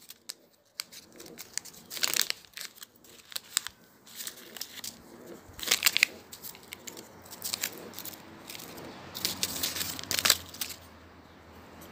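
Sealed pouch of a COVID-19 rapid antigen test being handled and torn open: crinkling and tearing of the wrapper in several short, sharp bursts.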